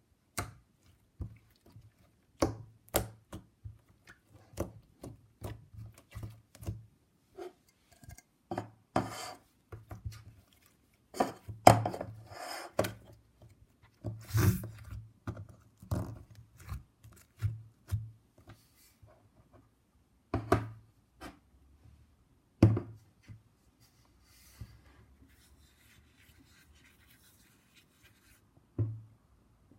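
Hands working slime: irregular sticky pops and clicks with short squelching bursts, denser in the middle and thinning out near the end.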